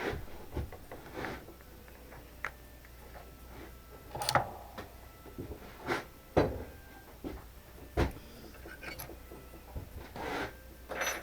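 Tools and parts being handled at a workbench: irregular knocks, clicks and light clatter, the loudest about four, six and eight seconds in.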